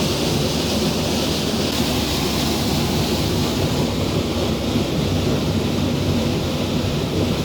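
Steady rush of water with the low, even hum of a water turbine running beneath the mill.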